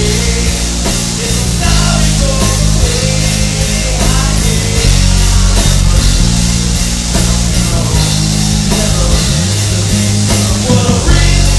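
A rock band playing live, with electric bass, guitar and a full drum kit keeping a steady beat in a heavy rock style.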